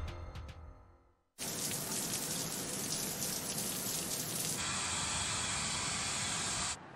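Theme music fades out into a moment of silence. Then shower water sprays steadily. About three seconds later this changes to the steady hiss of a hand-held hair dryer, which cuts off just before the end.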